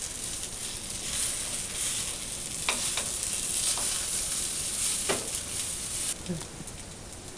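Oil sizzling steadily on a griddle as tortillas dipped in guajillo chile sauce fry for enchiladas, with a few light knocks as they are handled. The sizzle eases a little near the end.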